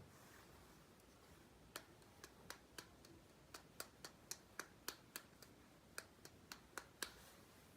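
A run of sharp light clicks and taps, about three a second and slightly irregular, from small hard miniature toy kitchen pieces being handled and set down. The clicks start about two seconds in and stop shortly before the end.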